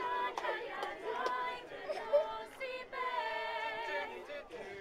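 A mixed group of young male and female voices singing a song in Welsh together, unaccompanied, ending on a long held note.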